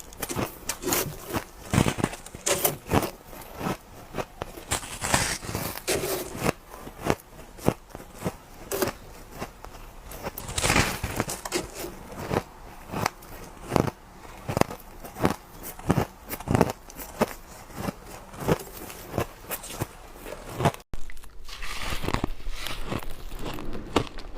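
Ice being bitten and crunched close to the microphone: a quick run of sharp, crackling crunches, one bite after another, with a sudden break about 21 seconds in.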